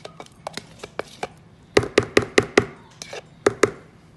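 Sharp tapping knocks as the last of the cottage cheese is knocked out of its plastic tub into a plastic mixing bowl. A few light taps come first, then a quick run of about five loud knocks a little under two seconds in, and two more about a second later.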